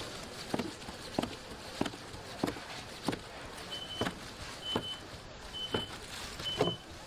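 Short knocks repeating about every 0.6 seconds, with a short high beep joining in about once a second from about halfway through.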